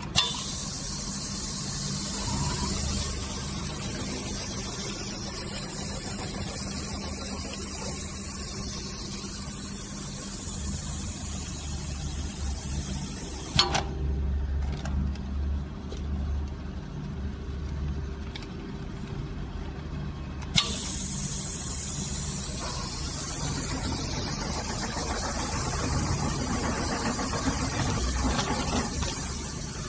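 Powder filling machine with a dust collector running: a loud steady hiss over a low hum. The hiss starts with a click, cuts off with a click about 14 seconds in, leaving the low machine hum, and starts again with a click about 21 seconds in.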